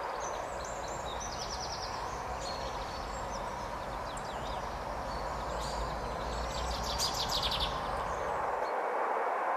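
Small birds chirping in short rapid trills, twice, over a steady rushing background noise.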